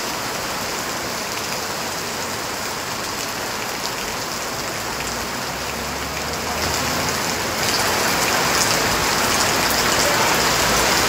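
Heavy rain pouring down steadily; it grows louder about two-thirds of the way in.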